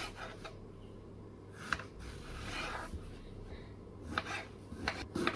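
Soft rubbing and scraping with a few light knocks, from eggplant being handled during kitchen preparation.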